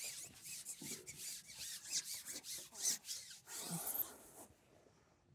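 Carbon fishing pole being handled and shipped out: a quick run of rubbing, rasping strokes that stops about four and a half seconds in.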